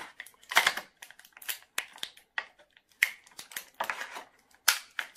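Small plastic doll and its tiny hat being handled and tugged at: a run of irregular clicks and short rustles. The hat turns out to be glued in place.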